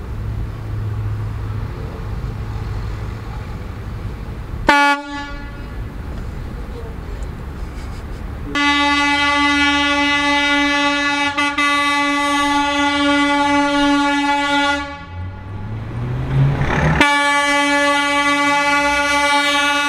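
Vehicle horn honking: one short toot about five seconds in, then two long, steady blasts of several seconds each on a single note, over a low engine rumble.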